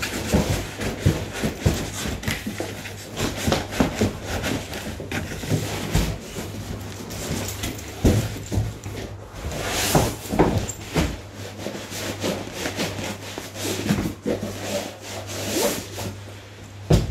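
Gig bag being pulled up out of a cardboard shipping box: irregular rubbing, scraping and knocks of fabric against cardboard and packing, louder in a few bursts along the way.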